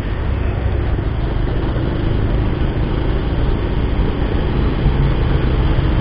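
Bajaj Pulsar 150 motorcycle's single-cylinder engine running steadily while the bike rides along, heard from the rider's position with steady wind and road rumble.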